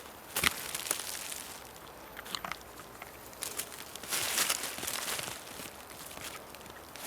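A hiker's footsteps crunching on the forest floor: a few sharp snaps in the first couple of seconds, then a longer, louder crunching and rustling from about four to five seconds in.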